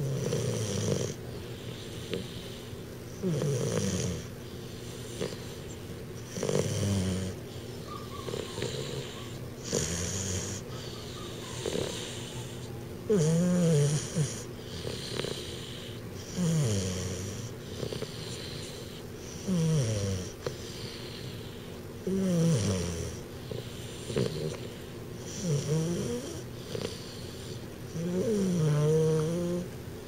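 12-week-old American Bulldog puppy snoring in his sleep: about ten rasping snores, one every three seconds or so, several with a wavering, gliding pitch. His big overbite makes him snore.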